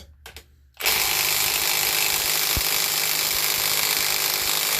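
Milwaukee M12 cordless impact wrench on third speed hammering steadily for about four seconds as it tightens a 1/2-inch bolt, starting about a second in after a couple of light clicks and cutting off abruptly.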